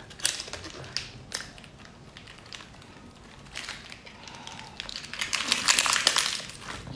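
Close-up eating sounds: a person biting and chewing crunchy food, with crisp crackling crunches that come thick and loud about five seconds in.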